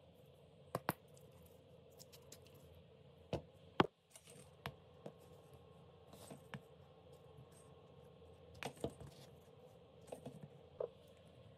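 Faint handling sounds: small bark-covered log rounds being knocked and set down on a rubber work mat and a steel ruler clicking against them, in scattered sharp clicks and knocks, the loudest about four seconds in. A steady low hum lies underneath.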